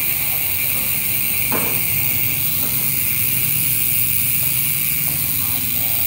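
ARC MT010 carbon rear hub freewheeling as the rear wheel spins, its freehub giving a steady, even high-pitched buzz. A single sharp click about one and a half seconds in.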